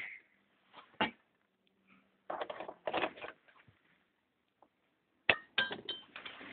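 Scattered clicks, knocks and rustling of handling, with a short knock about a second in, a rustling stretch around three seconds, and a sharp click followed by a quick run of clicks near the end.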